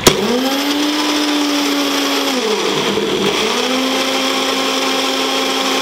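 Small electric mixer grinder starting with a click and running at full speed, grinding thick green chutney paste to blend in added oil. Its motor whine falls away a little past halfway, then spins back up to speed.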